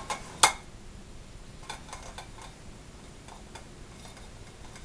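Queso seco being grated on a metal box grater over a plate: a sharp knock of the grater about half a second in, then light, irregular strokes.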